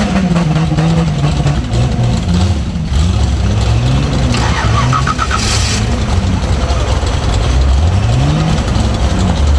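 Rock buggy engine revving up and down again and again under load as it crawls up a rocky ledge trail, with a short hiss about halfway through.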